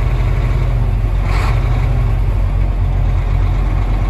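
Semi truck's diesel engine idling steadily, heard from inside the cab while the air system builds pressure after a governor valve replacement. A brief hiss comes about a second and a half in.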